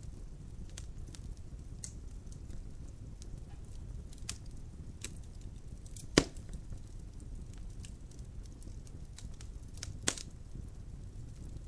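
Wood fire crackling in a fireplace: scattered small snaps over a steady low rumble of flames, with one loud pop about six seconds in and another near the end.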